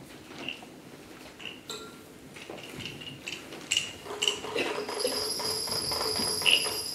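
Light metallic percussion: sparse clinks and pings, then from about four to five seconds in a steady jingling, bell-like shimmer that grows louder.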